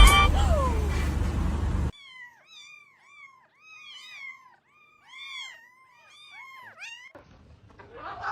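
A cat mewing over and over, short rising-and-falling calls about two a second. Before it, the loud music of the previous clip fades out, and a brief rustling burst comes near the end.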